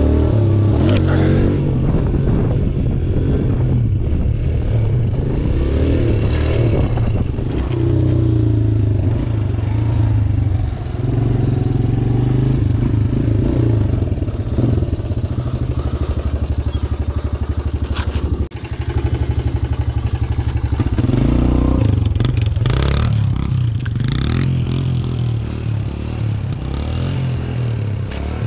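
Suzuki DR-Z125 single-cylinder four-stroke engine running as the bike is ridden, the revs rising and falling throughout. Occasional sharp clattering knocks from the bike, one about two-thirds of the way through and a few more shortly after.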